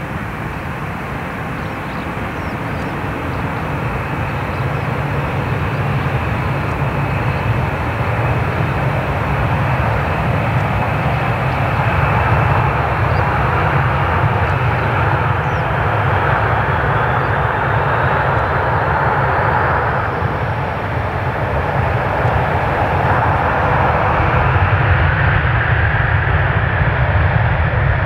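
Boeing 737-800 jet engines running at rising power as the airliner begins its takeoff roll. A steady jet noise swells in loudness, with a faint whine rising in pitch partway through.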